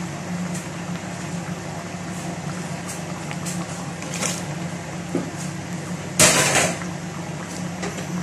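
A pot of mung bean stew simmering on the stove, with a steady low hum underneath and a few light clicks. About six seconds in comes a short, loud splash as cubed squash is tipped from a plate into the pot.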